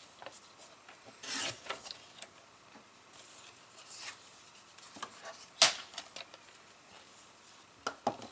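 Fiskars paper trimmer's sliding blade cutting a strip of patterned cardstock, a short rasp about a second in, followed by paper being slid and handled with light scrapes and a sharp tap a little past halfway.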